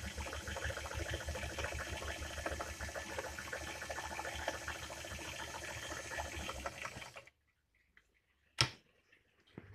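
Singer 319K zigzag sewing machine running at speed, stitching a decorative embroidery pattern with a fast, even needle rhythm. It stops suddenly about seven seconds in, and a single sharp click follows about a second later.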